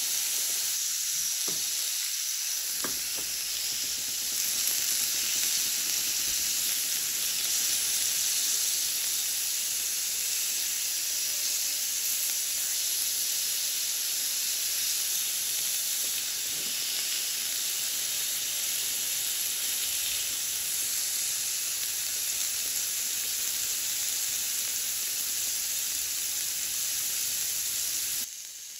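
Steak sizzling steadily on a hot iron griddle plate, with a few faint pops early on. The sizzle drops off sharply just before the end.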